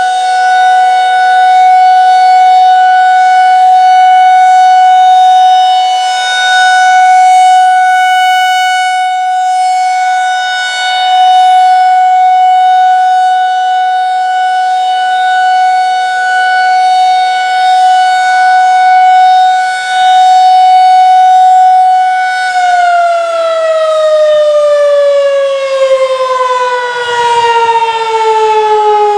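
Federal Signal 2001-SRN rotating mechanical warning siren sounding a loud, steady single tone that swells and fades every few seconds as it turns. About 23 seconds in it shuts off and winds down, its pitch falling steadily.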